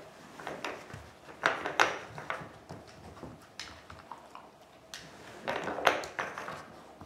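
Wooden knobs of a Dog Turbo puzzle toy knocking and scraping in their channels as a dog pushes them, in irregular clicks and short slides, the loudest a couple of seconds in and near the end.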